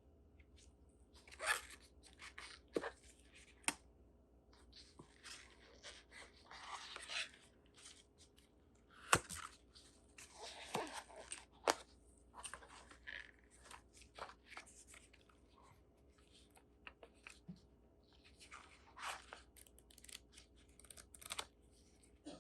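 Phone packaging being handled and opened: irregular rustling and tearing of plastic and paper with scattered small clicks and taps, the sharpest click about nine seconds in.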